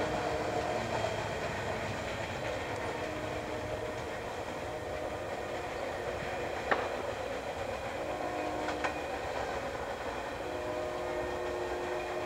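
Freight train cars rolling along the rails out of view, a steady rumble with faint squealing tones that come and go. Two sharp clicks sound about seven and nine seconds in.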